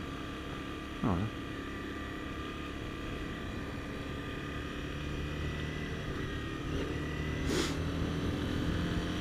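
Honda CBR250R's single-cylinder engine running at low road speed, with wind rushing over the microphone and getting a little louder in the second half. There is one short, sharp crack near the end.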